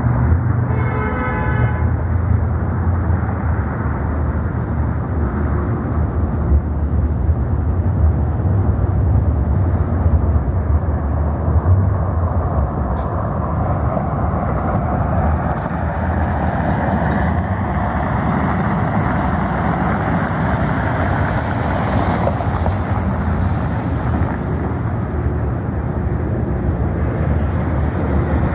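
Road traffic: a steady rumble of cars passing on a multi-lane street, with a brief pitched tone, like a horn, about a second in.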